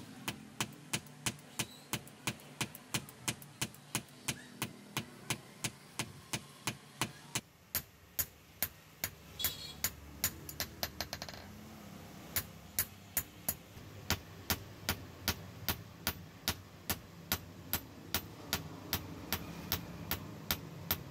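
Hand hammer striking a hot steel banana-knife blade on a steel anvil block, a steady run of sharp metallic blows about three a second. The blows pause for about a second roughly halfway through, then carry on at the same pace.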